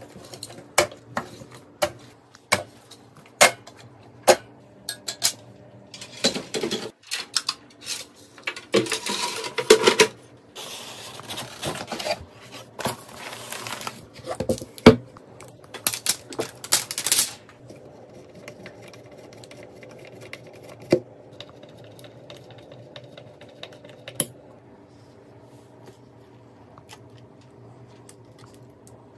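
Gloved hands handling computer hardware (cooling fans, radiator, graphics card): a run of sharp plastic and metal clicks and taps, then stretches of scraping and rustling. The second half is quieter, with a steady low hum and a few isolated clicks.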